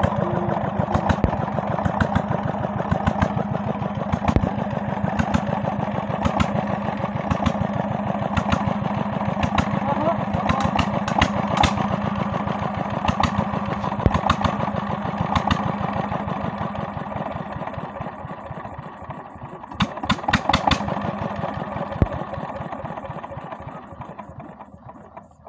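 Diesel engine running at a steady speed, its evenly spaced firing beats repeating several times a second over a low hum, fading out near the end.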